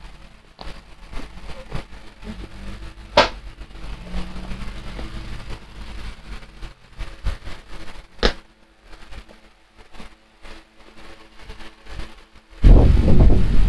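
Rustling and soft handling noises as a memory foam headrest cushion is strapped onto a gaming chair, with two sharp clicks, about three seconds in and about eight seconds in. Near the end a man's short loud exclamation.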